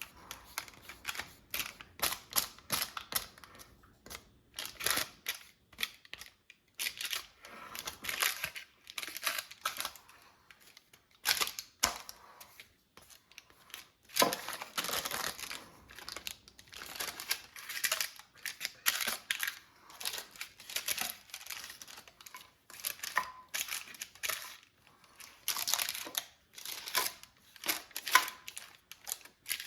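Flat spatula smoothing thick chocolate fudge in a parchment-lined baking dish: a long run of short, irregular scraping strokes.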